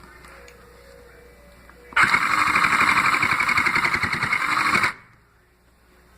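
Sew Cool toy sewing machine running in one burst of about three seconds, its needle chattering rapidly as it stitches fabric, then stopping abruptly. A faint click comes just before.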